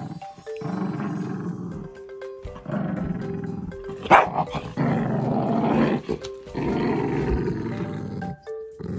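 Beagle growling in four long, rough growls with short breaks between them, and one short sharp bark about four seconds in. It is annoyed growling at being handled, the dog turning aggressive while its back is stroked.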